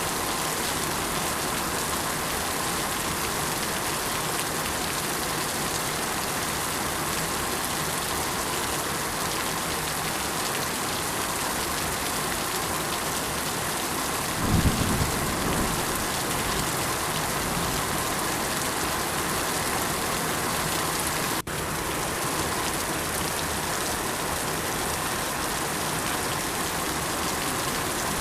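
Steady rain falling on surfaces, an even hiss. About halfway through there is a brief low rumble, the loudest moment, and about three-quarters of the way in there is a split-second dropout.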